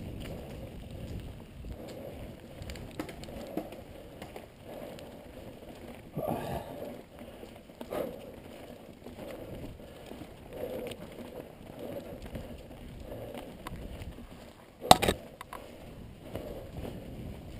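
Downhill mountain bike rolling fast over a dirt trail: tyre noise, chain and frame rattling over roots and stones, and wind on the helmet microphone. A loud sharp knock about fifteen seconds in, the bike hitting a bump.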